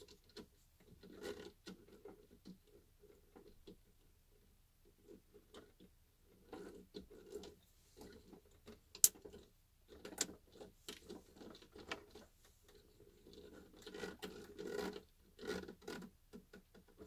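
Faint scattered clicks, taps and scratching of hands working the plastic chassis and axle parts of a WPL B-36 RC truck model, with one sharp click about nine seconds in.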